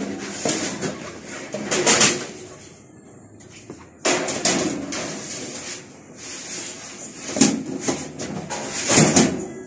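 Sheet-metal panels of a steel cabinet drawer being handled and fitted together by hand, scraping and knocking in irregular bursts. A sudden louder knock about four seconds in, and sharp clanks near the end.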